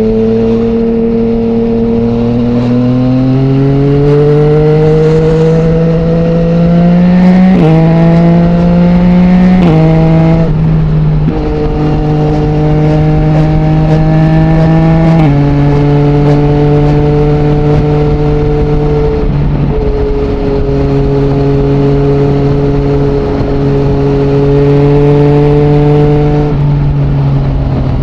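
2020 Yamaha MT-09's inline-three engine running through an Akrapovic full-system exhaust with no dB killer, under way on the road. The revs climb over the first several seconds and fall sharply at upshifts around seven and ten seconds in. The engine then holds steady revs while cruising, with further sudden drops in pitch about fifteen and twenty-six seconds in.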